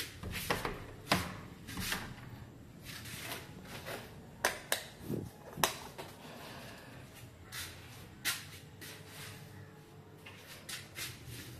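Scattered light clicks and knocks, about a dozen at uneven intervals: footsteps and handling noise from someone carrying a phone camera through a doorway and down tiled steps.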